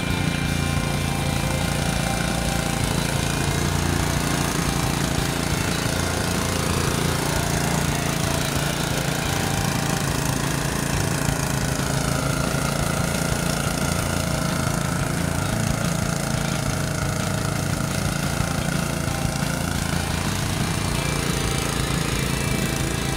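Single-cylinder Honda GX160 engine running steadily on a home-built rotary tiller (cultivator) as it works the soil, its pitch wavering slightly under changing load in the middle stretch.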